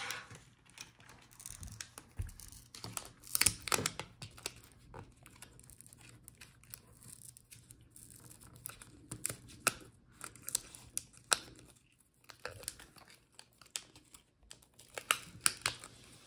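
Irregular small clicks, taps and crinkles of hands handling the laptop's plastic speaker units and pulling their wires free from the chassis, with a short quiet spell about two-thirds of the way through.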